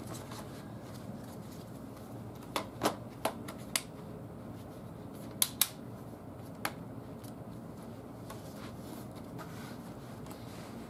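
Battery pack being fitted back into the underside of a Dell N7110 laptop: a run of about seven sharp plastic clicks and knocks between about two and seven seconds in, as it is pushed into its bay and latched, over a steady low hiss.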